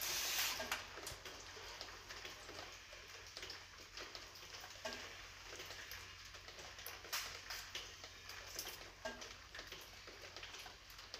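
Water dripping from a leak in a concrete ceiling: a faint, irregular patter of small ticks over a low steady hum.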